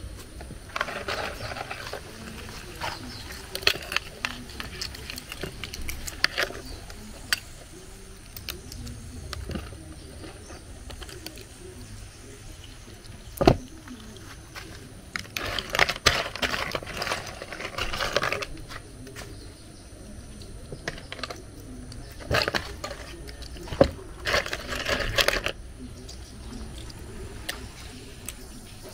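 Snail shells being cracked and picked apart by hand over a plastic bowl: scattered crunches and clicks of shell, with broken pieces dropping into the bowl, and one sharper knock about halfway through.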